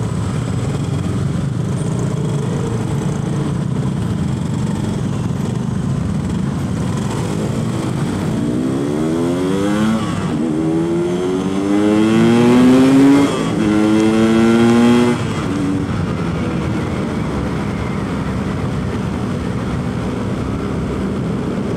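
Yamaha RX-King single-cylinder two-stroke engine running through its stock exhaust, at a steady low speed at first. It then accelerates through the gears: the pitch climbs, drops at a shift and climbs again three times over about seven seconds before it settles back to a steady run.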